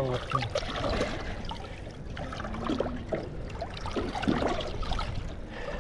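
Water lapping and sloshing against the side of the boat, irregular and moderate in level.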